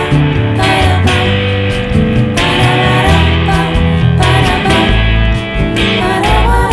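Instrumental song music led by guitar, with a steady bass line and no singing.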